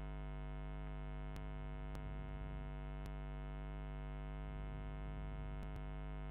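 Steady electrical mains hum, a buzz with many overtones, picked up by the recording setup. A few faint computer-keyboard keystroke clicks come through it.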